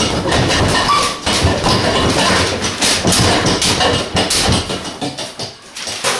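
Gloved fists striking a TKO heavy punching bag in a rapid flurry, a dense run of thuds and slaps that dies down after about five seconds.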